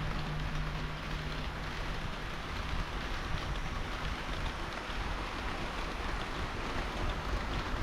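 HO-scale model train of KiHa 40 and KiHa 58 diesel railcars running on the layout track: a steady rolling rattle of wheels on rail, with a low hum that fades out in the first second or so.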